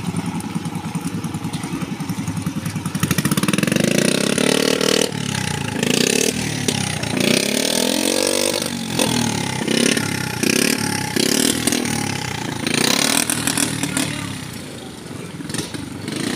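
Small motorcycle engines running and revving as they pass, the pitch rising and falling several times.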